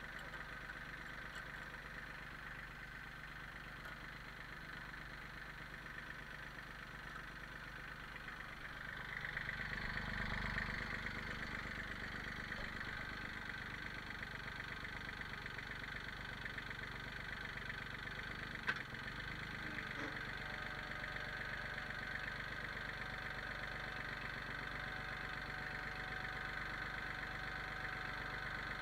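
Kubota compact tractor's diesel engine running steadily. It grows louder for a few seconds about a third of the way in, and there is one sharp click about two-thirds of the way through.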